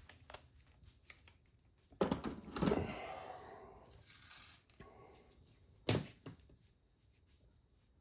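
Objects being handled and set down on a workbench during clean-up. About two seconds in there is a scraping, rustling stretch that fades out, and near six seconds a sharp knock followed by a smaller one.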